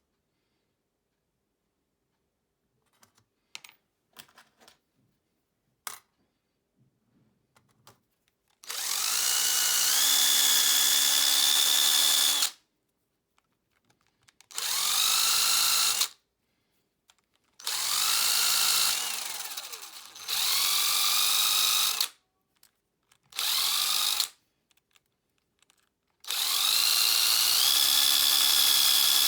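A small power tool polishing homemade metal spoon lures, run in about six short bursts: each spins up with a rising whine, holds a steady pitch for one to four seconds, and cuts off. Before the first burst there are a few light clicks and handling knocks.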